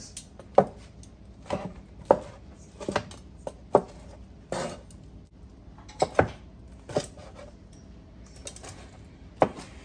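Large kitchen knife chopping cooked ham hocks into bite-sized pieces, striking a plastic cutting board. About a dozen sharp, irregular knocks, roughly a second apart.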